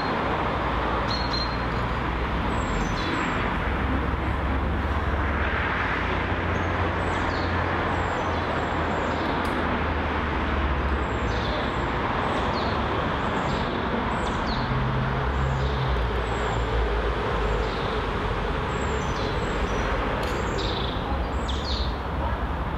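Steady outdoor rushing background noise with uneven low rumbles, and small birds chirping briefly now and then, more often near the end.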